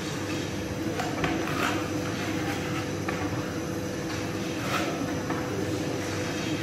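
Steady mechanical rumble of bakery machinery, with a few short scrapes and clanks from a long-handled metal peel working at the mouth of the sangak oven.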